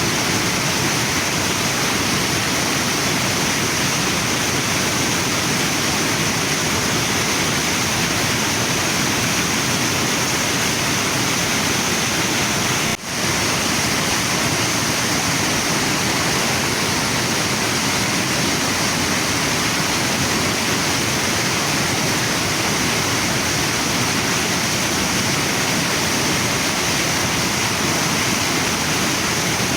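Waterfall and river water rushing in a steady, unbroken wash, with a brief drop in level about thirteen seconds in.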